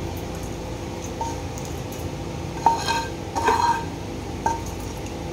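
Frying pan and wooden spatula knocking and scraping as roasted onions, lentils and rice are tipped into a steel mixer-grinder jar: a handful of light clinks, some with a short metallic ring, the loudest near the middle, over a steady background hum.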